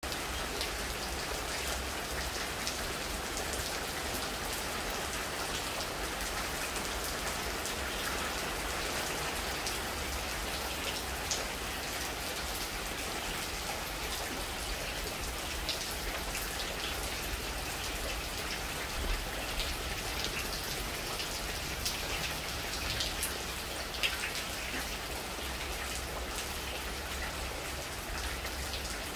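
Steady rain falling on leafy trees: an even hiss with scattered louder drops now and then.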